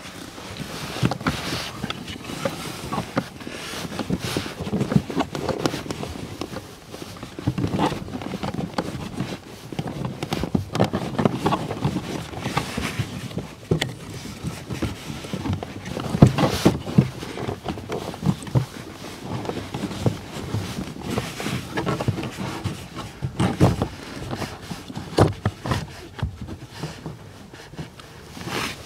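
Irregular rustling and scraping with many short knocks and clicks as a new pleated cabin air filter in a plastic frame is worked and pushed up into its housing behind the dashboard.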